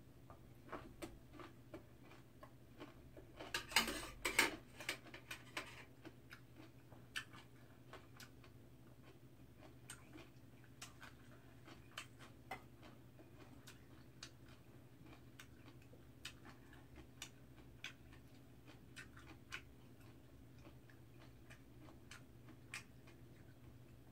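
Quiet eating sounds: scattered small clicks and taps of chopsticks and oyster shells on a metal tray, with chewing, and a brief louder clatter about four seconds in.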